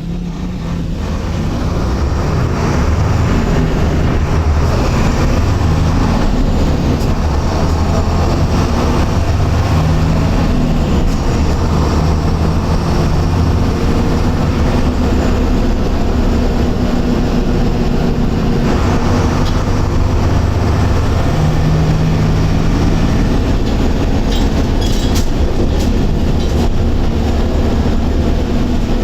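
Mercedes-Benz OF-1721 Euro II bus diesel engine running as the bus drives, a loud steady rumble whose note shifts a couple of times, about ten seconds in and again near twenty seconds. It fades in over the first couple of seconds.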